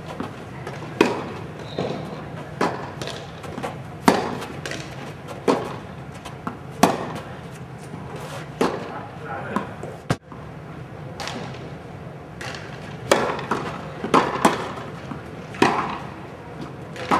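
Tennis balls being struck with rackets and bouncing on the court in a rally: sharp hits about every second to second and a half, with an abrupt drop-out about ten seconds in.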